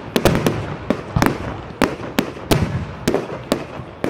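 Fireworks display going off: a rapid, irregular run of sharp bangs, about three a second, over a continuous rumble.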